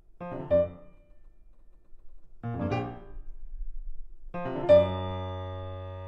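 Grand piano played solo: two short, rapid clusters of notes, then a third that runs into a loud chord about three-quarters of the way through, held and left ringing.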